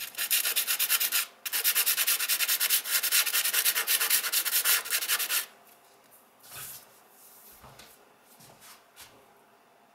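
Soft pastel chalk scraping across sandpaper in rapid back-and-forth strokes. There is a short break about a second in, and the scraping stops about five and a half seconds in. A few faint knocks follow.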